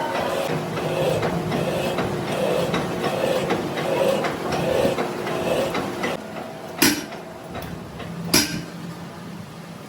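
A workshop machine runs with a steady hum that pulses about once a second, then dies down about six seconds in. Two sharp metal knocks follow, about a second and a half apart.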